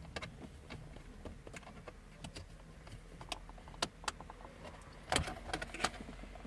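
Small clicks, taps and rattles of plastic trim parts being handled and pried at the Audi A6 C6's centre-armrest lid latch, with a few sharper clicks about five seconds in.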